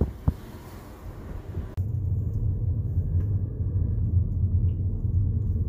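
A steady low rumble that starts abruptly about two seconds in, after a quieter stretch of outdoor background noise.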